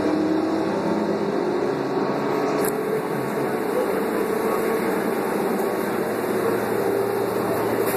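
Cabin noise of a 2001 New Flyer C40LF transit bus under way: its Doosan CNG engine and Allison B400R automatic transmission running steadily with road noise, carrying a faint whine that drifts a little in pitch.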